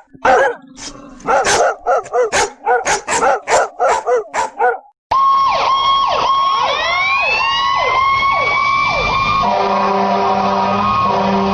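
Neighbourhood dogs barking, about a dozen barks. After a brief gap the sound cuts to a fire engine siren: a steady tone with repeated sweeping tones, settling about four seconds later into several steady tones over a low rumble.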